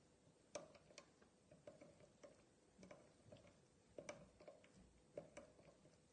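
Faint, irregular small clicks and ticks, about two a second, from metal parts being handled on a jig borer while a dial test indicator is swept over a freshly machined platter.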